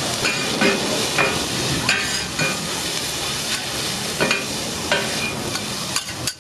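Cubed steak with onion and garlic sizzling steadily on a flat-top griddle. Metal spatulas scrape and clack against the griddle plate again and again as the pieces are turned.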